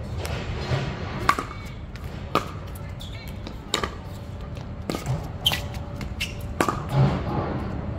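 Pickleball rally: sharp pops of paddles hitting the plastic ball, about one every second and a quarter, with fainter ticks in between.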